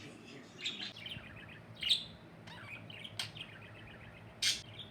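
Pet budgerigars chirping and warbling, with a few sharp, loud chirps standing out.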